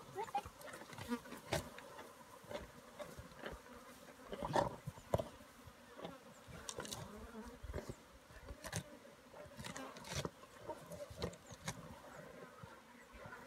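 Flies buzzing steadily while spotted hyenas feed, with scattered sharp cracks and crunches from the carcass and a brief louder hyena growl about four and a half seconds in.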